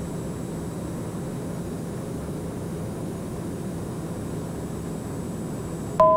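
Steady in-cabin drone of the Socata TBM 910's Pratt & Whitney PT6A turboprop engine and propeller in descent, an even rushing noise with a low steady hum. Just before the end, a loud electronic tone of two steady pitches sounds together and starts abruptly.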